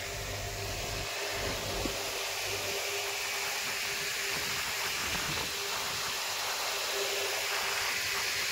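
Steady hissing noise with a constant low hum underneath, growing slightly louder.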